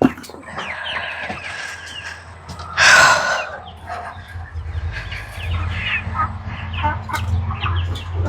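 Chickens clucking and calling, with one loud, harsh squawk about three seconds in, and a low rumble underneath in the second half.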